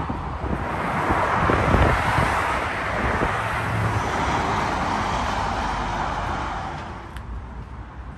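A road vehicle driving past: tyre and engine noise that swells up, holds for several seconds, then fades away near the end.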